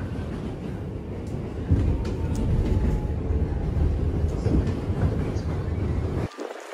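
New York City 1 subway train running, a steady low rumble of the car rolling along the track heard from inside the car. It cuts off suddenly near the end.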